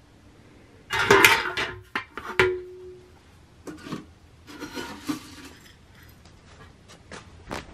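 Irregular rustling and scraping with short clinks, loudest about a second in. A clink about two and a half seconds in rings briefly. Softer rustles follow, and a sharp click comes near the end.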